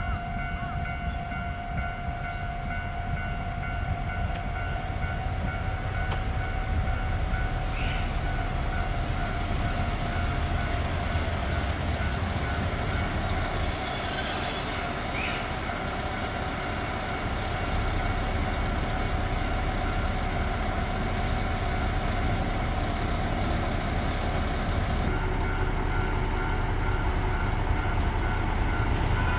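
JR Hokkaido KiHa 261 series diesel limited express train running past at close range: diesel engines and steel wheels on the rails, with a steady squeal of wheels on track.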